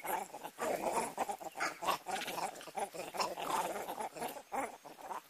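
Vervet monkeys making aggressive calls during a fight: a rapid, dense run of short, harsh calls from several animals.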